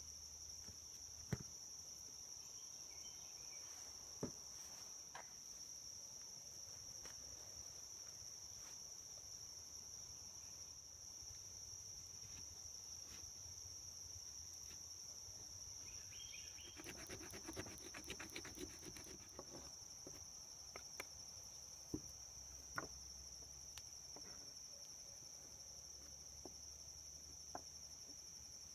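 Crickets or similar insects calling in a steady, high-pitched chorus. A few scattered faint clicks sit over it, and a brief rapid rattle of clicks comes about seventeen seconds in.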